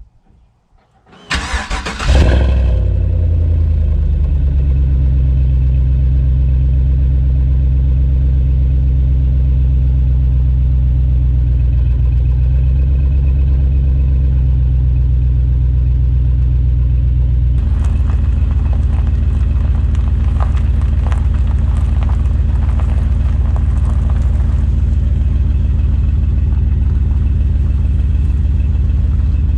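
A 5.3-litre V8 breathes through a Flowmaster Super 44 muffler with the resonator deleted and turndowns straight off the muffler. It is started, with a short crank and a flare as it catches about two seconds in, then settles into a steady idle. About two-thirds of the way through, the idle note abruptly turns rougher and fuller.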